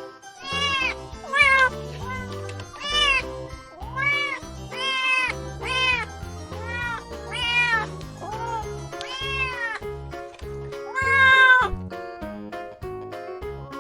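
Cats meowing, about a dozen short meows roughly one a second, each rising and falling in pitch, over background music.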